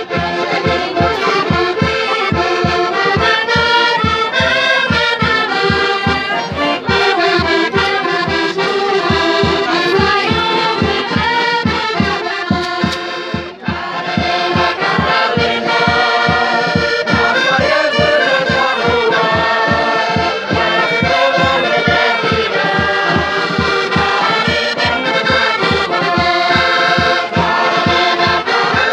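Portuguese folk group playing a song: several accordions carrying the tune over a steady bass-drum beat, with tambourines and women's voices singing together.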